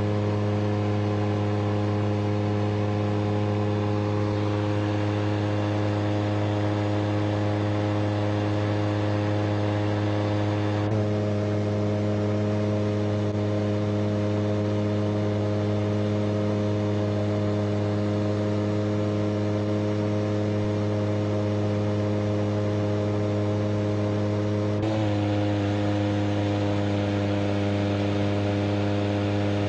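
CFM Shadow microlight's two-stroke engine droning steadily in flight, one even pitched note with many overtones. The pitch drops slightly about 11 seconds in and wavers briefly near 25 seconds, small changes in engine speed.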